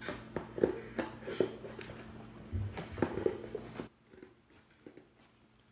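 Cardboard boxes being handled and moved: a string of knocks and scuffs over a steady low hum, dropping away to near quiet about four seconds in.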